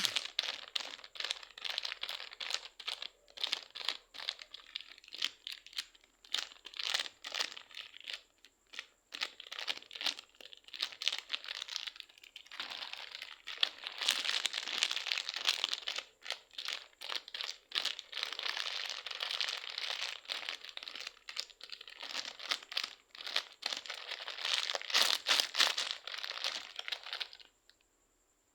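A soft craft material such as slime or clay being squeezed and pressed by hand: a dense run of small crackles and crunches, broken by short lulls, that stops abruptly near the end.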